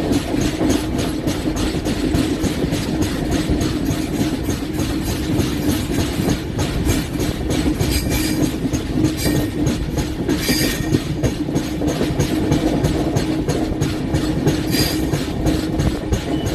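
LHB passenger coach running on the rails with a flat spot on one wheel, giving a rapid, regular pounding knock under a steady rumble as the coach takes a curve at moderate speed. A few brief high-pitched bursts come through about every few seconds.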